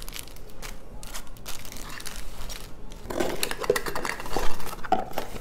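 Small plastic packets of crystal rhinestones crinkling and rustling as they are handled. From about three seconds in, a cardboard box is handled and opened, with louder scraping and knocks.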